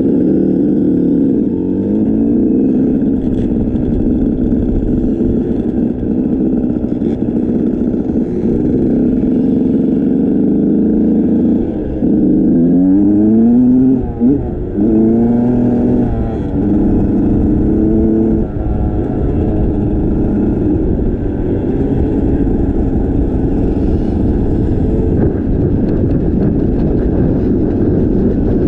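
A vehicle engine running under way. Its revs rise and fall in several quick glides a little before the middle, then settle back to a steady drone, over a constant rushing noise.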